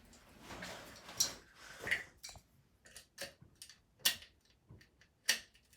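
BMX freewheel being turned by hand on the hub while it is threaded on, its ratchet giving off irregular sharp clicks and ticks, a few a second.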